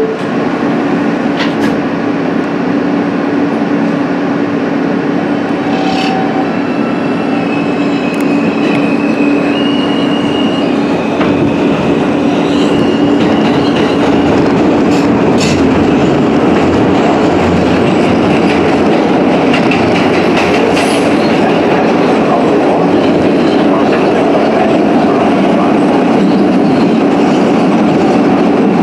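Alstom R160 subway car pulling out of a station and running into the tunnel, heard from inside the car. A steady hum and a series of high propulsion whines stepping up in pitch from about six to fifteen seconds in, then the wheel-and-rail running noise grows louder with speed.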